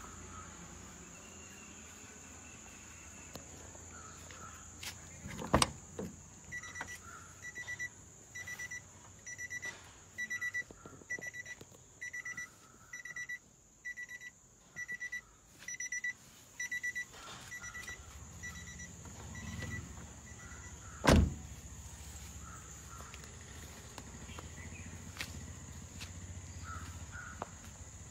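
Nissan Caravan E25 van's electronic warning beeper sounding a steady high beep a little under twice a second for about ten seconds. The beeping falls between two loud thumps, one just before it starts and one a few seconds after it stops, the kind a van door makes opening and shutting.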